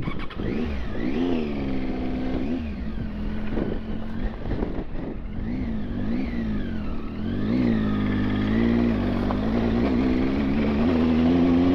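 Adventure motorcycle engine under way, its revs rising and falling several times as the rider rides through town, then holding steadier and a little louder near the end.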